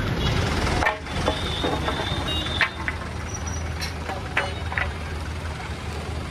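Street traffic with motorbikes passing: a steady low rumble of engines and road noise, with a few short clicks and knocks.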